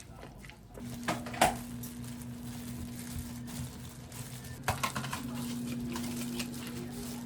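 A few dishes or utensils clinking and knocking, with a cluster near the middle. About a second in, a steady electric appliance hum starts and keeps going.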